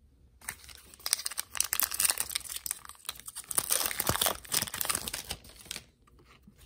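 Foil wrapper of a Topps baseball card pack being torn open and crinkled by hand, a dense crackling run of about five seconds.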